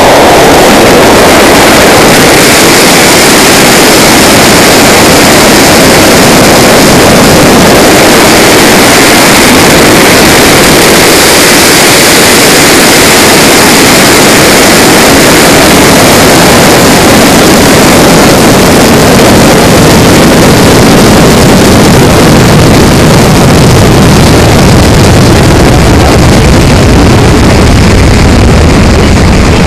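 Flight sound of a two-stage high-power rocket (Loki M2550 booster staged to an Aerotech K700W sustainer), heard on board the sustainer: a continuous, very loud rushing noise of motor burn and air rushing past the airframe through boost and climb, with no distinct breaks.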